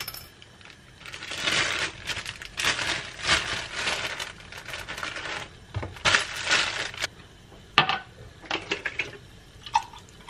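Kitchen handling noises: several spells of rustling and scraping, then a few sharp clicks and light taps near the end.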